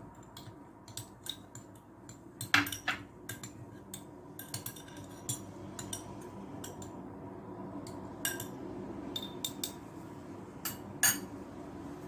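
Kitchen utensils clinking and tapping against dishes, a scattered run of sharp clinks with the two loudest ringing about two and a half seconds in and near the end, over a steady low hum.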